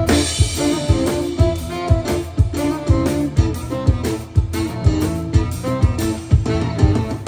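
Live band playing an instrumental: a plucked-string melody over a steady drum beat of about two beats a second.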